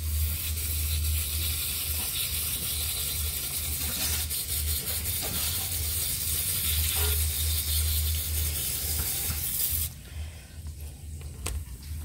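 Steady hiss of running water as plant roots are rinsed in a basin. It cuts off suddenly near the end.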